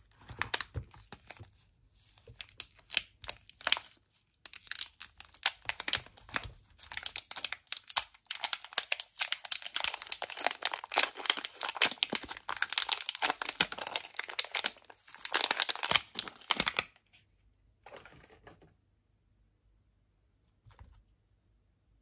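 Thin clear plastic film wrapper of a bar soap being crinkled and torn open by hand: dense crackling with a couple of short pauses, stopping about three quarters of the way through. After that only a few faint handling sounds.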